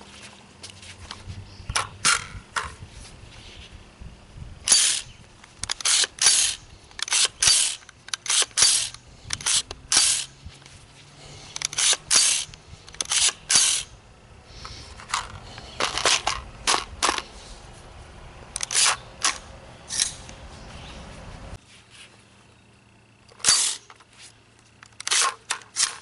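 Smith & Wesson M&P15 AR-15-style rifle being handled by hand: dozens of sharp metallic clicks and clacks from its controls and action, often in quick pairs or small clusters. No shots are fired.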